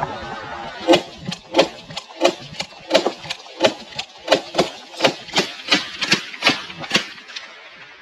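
A rapid volley of shotgun blasts from several guns, about eighteen shots at roughly three a second, fired into a flushing flock of snow geese, with one shooter emptying his magazine tube. The clamour of the geese calling is heard at the start, before the first shot about a second in.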